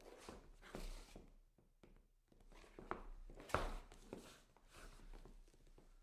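Shoe soles scuffing and scraping on wood in a series of irregular short scuffs, the loudest about three and a half seconds in.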